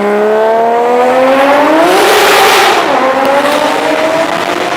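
Swapped 2JZ inline-six in a BMW E46 revving hard under acceleration, its pitch climbing steadily. About two seconds in, a loud hiss rises over it and the pitch dips, then the engine carries on at a steadier, lower pitch.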